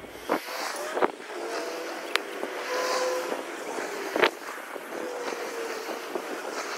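A vehicle engine running with a slightly wavering pitch. Four sharp knocks come through it, the loudest a little past four seconds in.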